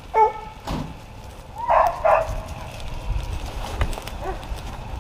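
Hunting hounds barking: a short yelp right at the start, then two loud barks in quick succession about two seconds in.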